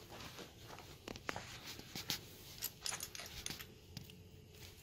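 Light clicks and taps of metal parts being handled as a bottom-bracket piece is fitted to a mid-drive motor, busiest in the middle and dying down near the end.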